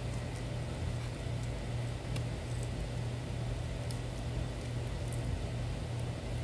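Faint, scattered small clicks of a fishing lure's metal treble hooks and split ring being fingered, over a steady low hum.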